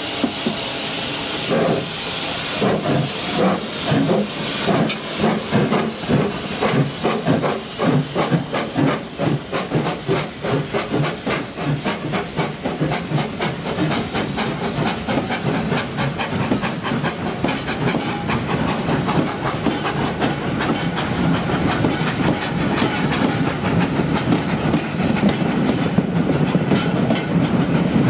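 A steam locomotive blowing off a steady hiss of steam. Then a double-headed steam train starts away with rhythmic exhaust chuffs that quicken as it gathers speed. Near the end the wooden carriages roll past with wheels clattering over the rail joints.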